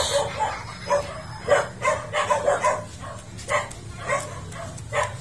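A dog barking repeatedly, about two barks a second with a short pause midway, over a steady low hum.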